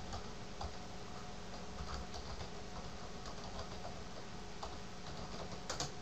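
Faint clicks of a computer keyboard as a web address is typed, scattered keystrokes with a louder pair of clicks near the end, over a steady low hum.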